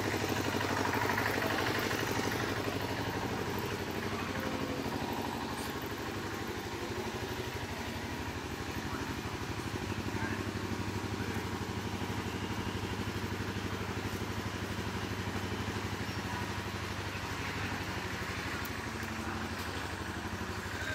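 A steady engine hum runs throughout at an even pitch, with faint voices in the background in the first couple of seconds.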